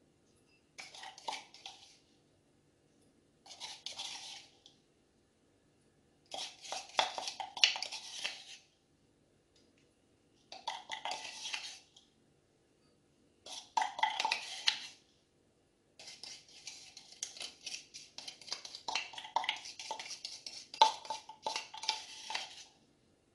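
A spoon scraping crumbs out of a bowl and clinking against glass dessert cups. It comes in about six scraping, clicking bursts with pauses between, and the last one is the longest.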